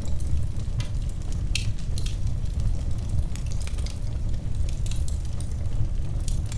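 Wood fire burning in a fireplace: a steady low rumble of flame with frequent irregular crackles and pops of the burning wood.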